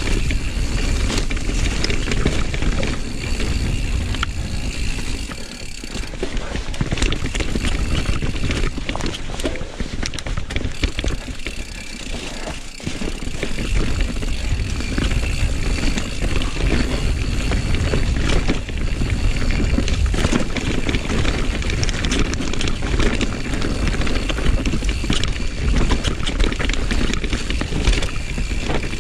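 Rocky Mountain Slayer mountain bike running down a dirt singletrack: tyres rolling over dirt and roots, with the bike rattling and clattering over bumps, under a steady rush of wind on the microphone.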